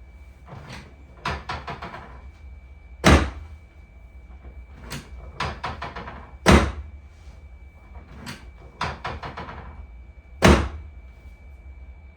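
Chiropractic adjustments on a treatment table: three runs of quick clicks, each ending in a loud clunk, the clunks about three and a half seconds apart.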